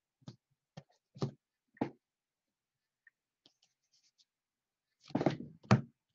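2018 Topps Finest baseball cards being handled by hand: short clicks and taps as cards are moved through the stack, about four in the first two seconds and a few faint ticks midway. About five seconds in comes a louder clatter as the cards are shuffled against the stack.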